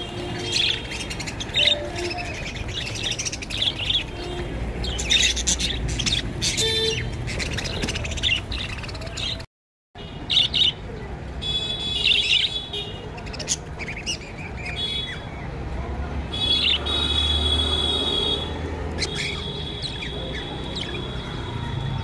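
A flock of budgerigars chirping and chattering continuously, with many short overlapping calls. The sound cuts out for about half a second near the middle.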